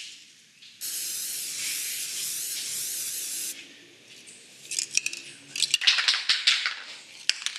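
Aerosol spray-paint can spraying in one steady hiss for nearly three seconds, stopping abruptly. About a second later comes a run of quick, irregular metallic rattling clicks.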